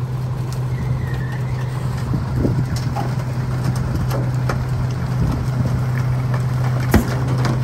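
Rear-loading garbage truck running its hydraulic packer: a steady low engine and pump hum under scattered light clanks, with a sharp knock about seven seconds in.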